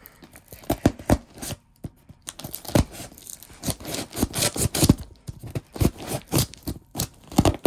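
A paper-wrapped package being torn and scraped open: a quick, irregular run of scrapes and rips of paper and cardboard.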